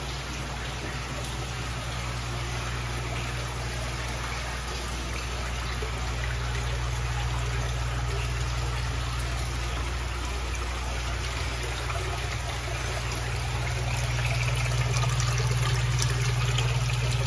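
Water trickling and bubbling in live-seafood holding tanks, with aerators and running water, over a steady low hum. It grows louder near the end.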